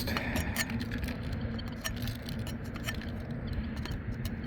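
Wind rumbling on the microphone, with scattered small clicks and rattles of handling throughout.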